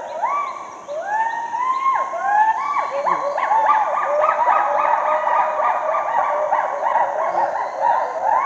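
Gibbons calling: a long series of whooping hoots, each rising then falling in pitch. They start spaced out and, from about a second in, come faster and overlap.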